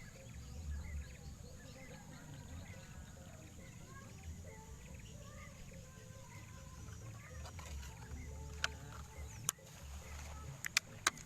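Outdoor ambience of many short bird chirps over a steady high insect-like drone, with a low rumble of wind on the microphone. Four or five sharp clicks come in the last few seconds.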